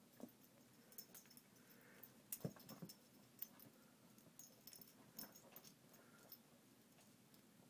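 Faint scuffling and a few soft thumps and clicks as a puppy wrestles and shakes a plush frog slipper on a fabric couch cushion.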